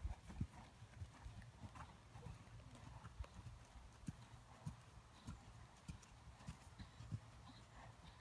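Ridden horse's hooves striking soft sand arena footing: faint, dull hoofbeats in a steady rhythm, about two a second.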